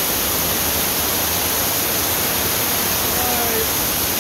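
Mine drainage water cascading down a small rocky channel, a loud, steady rush of falling and splashing water.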